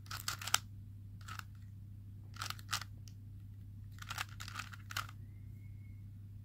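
Plastic layers of a smart speed cube being turned, in four short clusters of clicking and scraping turns.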